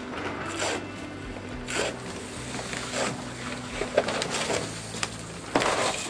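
Heavy fabric concrete column form rustling and ripping in a series of short, sharp swishes as it is handled and peeled off a cast concrete column.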